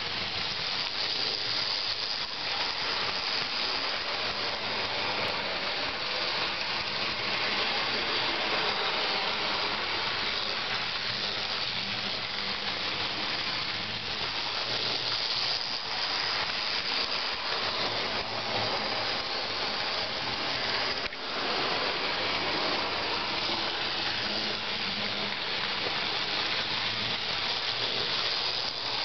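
Bachmann N-scale 4-4-0 American model steam locomotive running on its track: the small electric motor, gears and wheels make a steady whirring hiss, with a brief drop about two-thirds of the way in.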